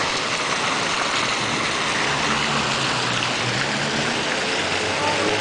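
Tyler Davidson Fountain's jets and spouts splashing into its basin: a steady rush of falling water. A low hum joins about two seconds in.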